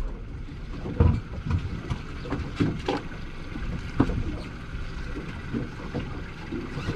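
Fishing boat on open water: a steady low rumble with wind on the microphone, broken by several sharp knocks, the loudest about a second in and another about four seconds in.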